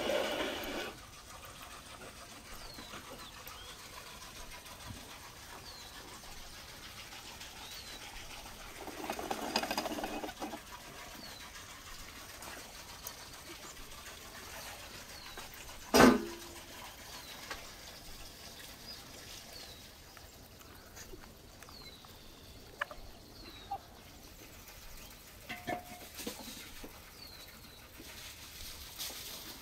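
A small bird repeats a short chirp about once a second over quiet outdoor ambience. At the start, a cast-iron pan scrapes across the floor of a clay oven, and a second scraping noise comes about ten seconds in. A single sharp knock, the loudest sound, comes about halfway through, followed later by a few small clicks.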